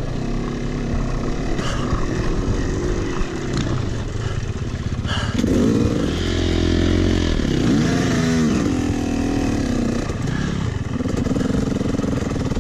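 Yamaha YZ250 two-stroke dirt bike engine being ridden hard, the revs rising and falling repeatedly through gear changes and throttle, with sharp climbs about five and eight seconds in.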